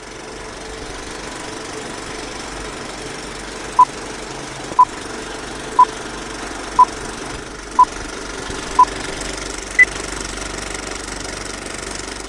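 Old-film countdown leader sound effect: a steady film projector whirr and clatter, with six short beeps one second apart at the same pitch, then a single higher beep.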